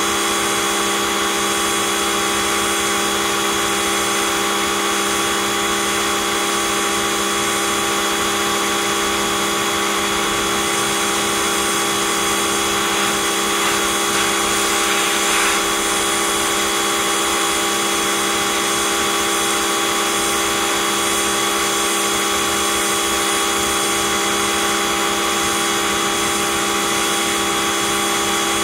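Electric pressure washer running steadily: the motor and pump hum on an unchanging pitch under the hiss of the high-pressure spray hitting concrete. The spray gets slightly louder and brighter for a couple of seconds around the middle.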